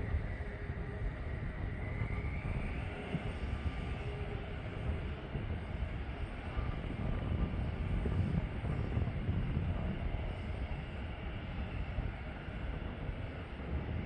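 Boeing F-15EX Eagle II's twin jet engines running, a steady low rumble with a whine that rises in pitch about two seconds in.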